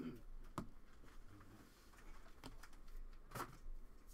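Faint rustling of a stack of baseball trading cards being slid one behind another in the hands, with a few short sharp clicks as card edges snap past each other, the loudest near the end.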